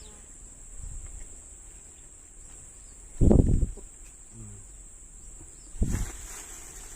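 Steady high-pitched insect drone, like crickets, with two loud dull low thumps, one about three seconds in and one near the end.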